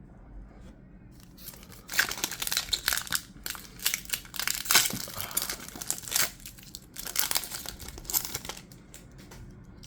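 A Pokémon booster pack's foil wrapper being torn open and crinkled in the hands: a run of sharp crackling rustles lasting about seven seconds, loudest in the first half.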